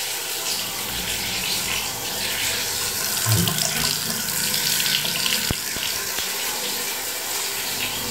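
Water running steadily from a washbasin tap into the basin and down its drain, run to test a newly fitted plastic waste trap for leaks.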